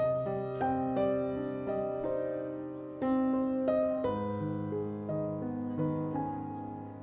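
Background music led by piano: a run of single notes played over held low chords that change every few seconds.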